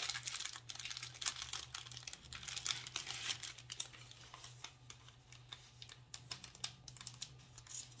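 Small clear plastic bag being handled and opened by hand: a run of irregular light crinkles and small clicks.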